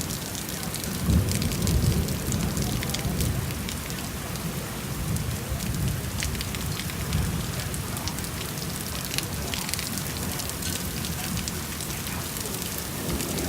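Rain falling steadily, with many sharp drop hits. A low rumble swells about a second in and eases off over the next couple of seconds.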